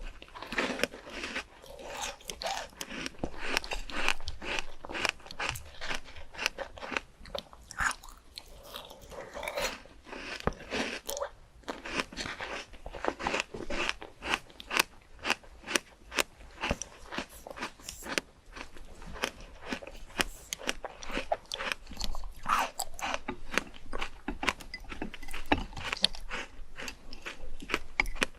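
Close-miked chewing and biting of crisp fruit: a continuous run of wet crunches, several a second.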